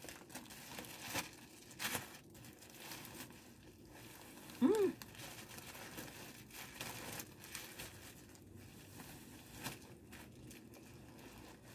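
Clear plastic bag crinkling in scattered bursts as hands work a tightly packed item out of it. A short vocal sound breaks in about halfway through.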